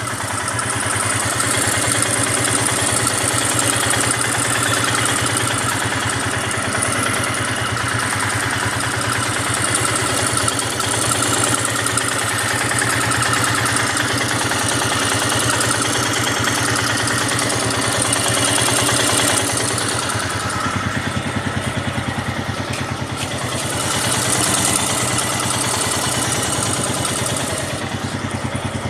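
Royal Enfield Himalayan's single-cylinder engine idling steadily with a rapid mechanical ticking over the engine note: tappet noise from the cylinder head.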